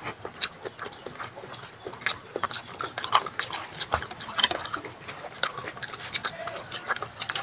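Close-up chewing and lip-smacking while eating fried banana cue: an irregular run of short smacks and clicks.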